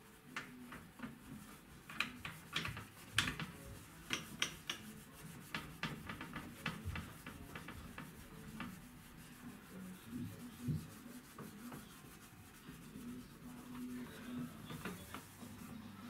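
A rolled gauze bandage rubbed back and forth over the plastic control panel of a washing machine: a run of quick, irregular scrubbing strokes and scuffs.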